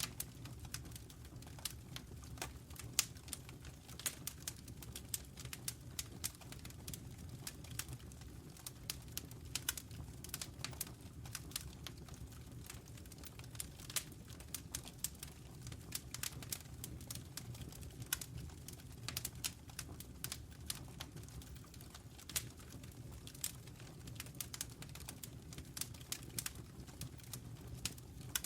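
Wood fire burning in a fireplace, crackling and popping with many small irregular snaps over a steady low rumble.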